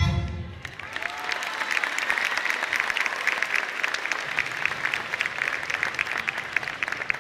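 Audience applauding; the dance music stops under a second in and a steady crowd clapping fills the rest.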